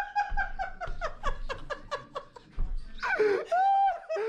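Hearty laughter: a fast run of short laughs, then higher, longer-held laughs about three seconds in.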